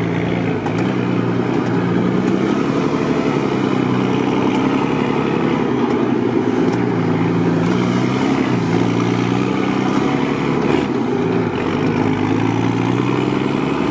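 Mercedes-Benz Unimog truck's engine running under way, a steady loud drone whose pitch dips and rises a little several times as the revs change.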